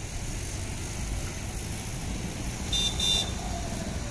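Distant low rumble of an Airbus A321-211's jet engines at take-off power as it lifts off, steady throughout. Two short, high-pitched beeps sound close together about three seconds in.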